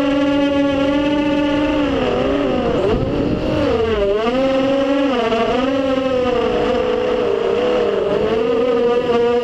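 FPV racing quadcopter's motors and propellers whining, heard through the onboard camera. The pitch holds steady for about two seconds, then dips and climbs several times as the throttle is changed through turns.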